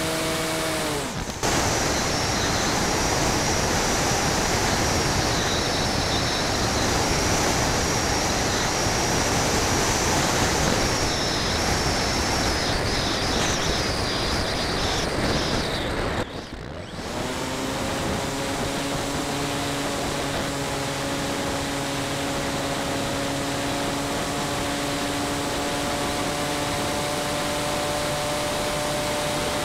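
Onboard sound of a radio-controlled model airplane. The propeller motor's steady whine cuts off about a second in, leaving a rush of airflow with a faint wavering high whistle as the plane glides with the motor off. About 17 seconds in the motor starts again and holds a steady whine.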